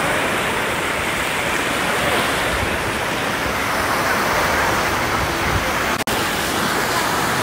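Wave pool water rushing and breaking around the tubes, a steady surf-like noise that drops out for an instant about six seconds in.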